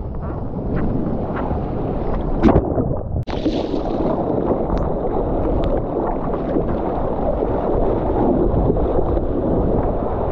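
Seawater sloshing and rushing around a camera at the water's surface, with wind buffeting the microphone and a few sharp splashes. The sound drops out for an instant about three seconds in.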